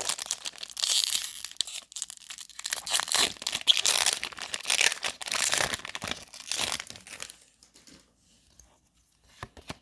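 Pokémon TCG booster pack's foil wrapper being torn open and crinkled, rustling and ripping for about seven seconds, then dying down to a few faint taps.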